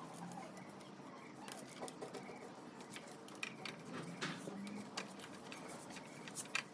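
Scattered light metallic clicks and taps of hand tools and parts being handled on a motorcycle engine under teardown, a few irregular ticks over a faint steady background.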